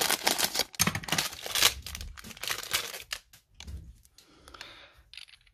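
Crinkling and rustling of plastic packaging as a bagged craft item with a cardboard header card is handled, dense and crackly for the first three and a half seconds, then thinning to faint rustles and a few small clicks.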